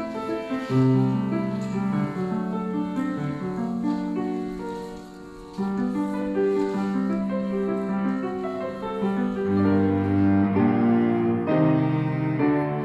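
A cello playing long held notes with a piano, a slow classical piece; lower cello notes come in about nine and a half seconds in.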